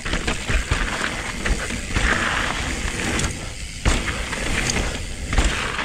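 Electric mountain bike riding over a chunky, rocky trail: tyres crunching over loose rock and the bike rattling and knocking over bumps, with wind rumbling on the microphone.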